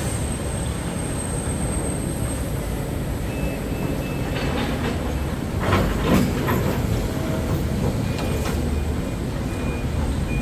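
Steady low rumble of a moving vehicle, with a few knocks about six seconds in.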